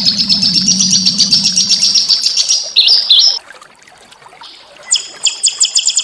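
A small songbird singing: a fast trill of rapidly repeated high notes, a few louder separate notes about three seconds in, a short pause, then another fast trill starting about five seconds in.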